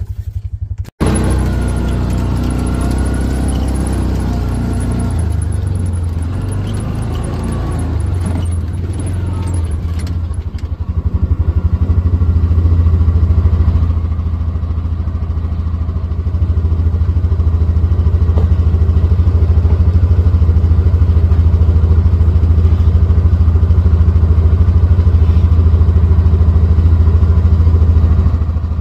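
Side-by-side utility vehicle's engine running, with some rattling. The sound grows louder and steadier about ten seconds in.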